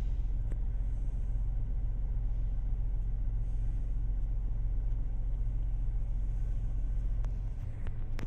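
Steady low rumble of a car heard from inside its cabin, engine and road noise as it idles and creeps forward in a queue.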